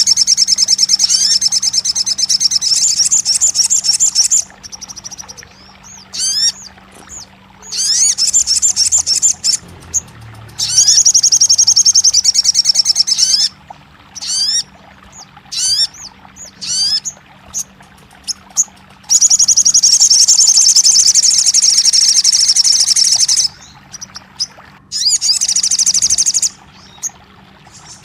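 Sogon songbird singing: long, very fast, high trills lasting several seconds, alternating with short rising whistled notes, over a faint steady hum.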